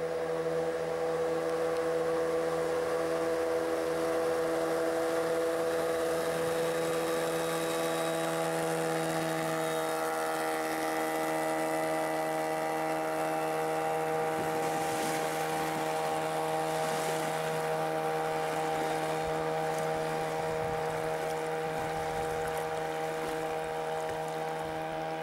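Outboard motor on a small river boat running steadily at high throttle, an even engine drone that holds its pitch throughout.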